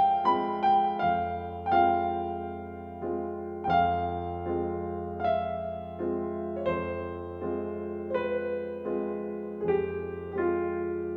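Slow, gentle piano music: single notes struck every half second to a second, each left to ring and fade over sustained low notes.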